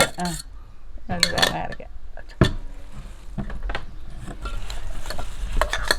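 A utensil clinking and scraping against a cooking pot as crushed shallots and chillies are mixed into the vegetables, with scattered sharp clicks and one louder knock about two and a half seconds in.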